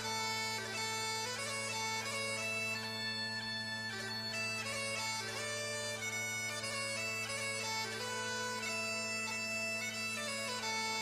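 Bagpipes playing a melody over steady, unbroken drones.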